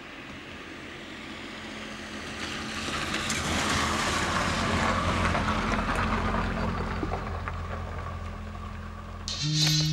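A small hatchback car driving past on a wet road. Its engine gives a steady low hum, while the tyre hiss swells to its loudest about halfway through and then fades.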